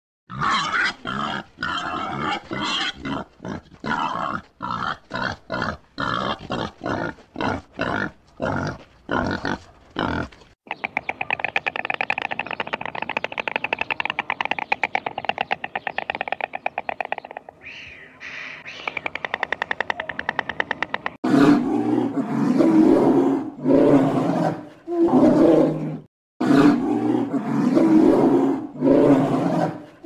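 Animal calls: a run of short cries, then a long rapid rattling call, then loud drawn-out cries of about a second each.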